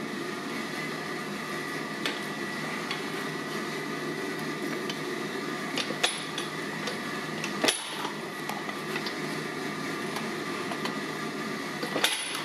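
Steady hum of a workshop machine running, with a few sharp metal clicks as hot steel sits in the press tooling; the loudest clicks come a little past halfway and again near the end.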